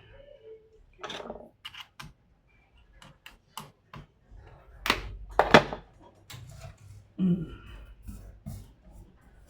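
Scattered plastic clicks and knocks of laptop parts being handled and snapped together during assembly, with two louder knocks about five seconds in.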